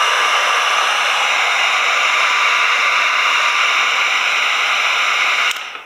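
Handheld electric heat gun running, a steady loud airy hiss of its blower, switched off just before the end.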